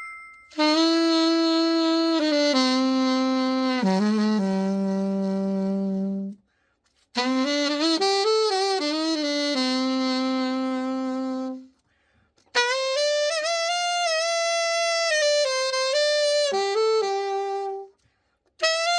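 Alto saxophone, a Yamaha YAS-62 freshly overhauled, played solo in three slow phrases of held notes with short pauses between them, as a play-test after the repair.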